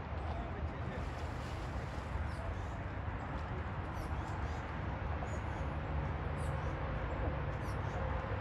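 Boat motor idling with a steady low rumble.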